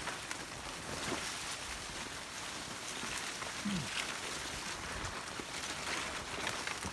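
Forest ambience: a steady rustling hiss with scattered faint ticks, and a brief low falling sound a little past halfway.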